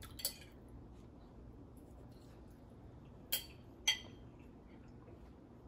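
A metal fork clinking against a plate three times as rice is scooped up: once just after the start, then twice in quick succession a little past three seconds in, each a short sharp clink with a brief ring.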